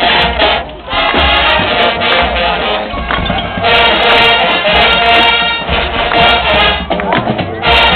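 High school marching band playing loud, sustained brass chords with drums, with a brief break about a second in and a change of chord partway through.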